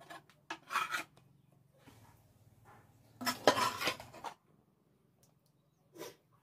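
Sounds of eating rice by hand from a plate: a few short bursts of scraping and clinking, the loudest lasting about a second a little past the middle.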